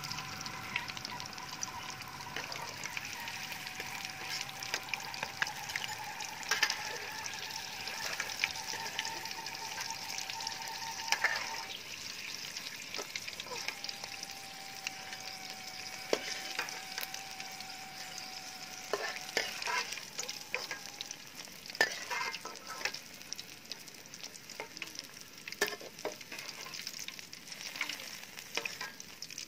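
Hot oil bubbling in a wok with steady sizzling and scattered sharp crackles and pops, as fried fish pieces drain above it in a wire strainer.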